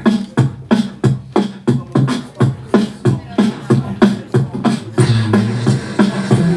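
Beatboxing in a jazzy groove: mouth-made drum hits, about three a second, over a low pitched bass tone that becomes fuller and more continuous about five seconds in.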